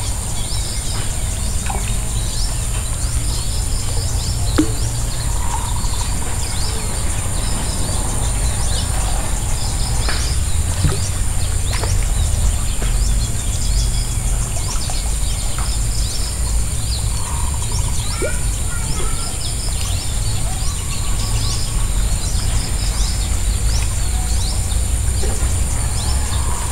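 Rural outdoor ambience: birds chirping on and off over a steady high-pitched hum and a constant low rumble.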